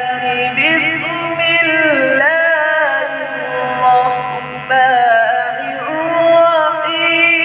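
A man reciting the Qur'an in the melodic qirat style into a microphone, with long held notes and ornamented turns of pitch.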